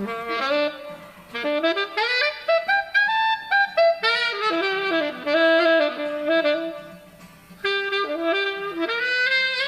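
A saxophone playing solo: quick jazzy runs and phrases of single notes, with a short break about seven seconds in.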